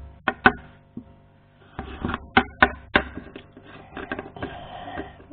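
Small plastic toys knocking and clicking against a wooden floor as they are picked up and set down: a quick run of sharp knocks, then a softer rustle of handling near the end.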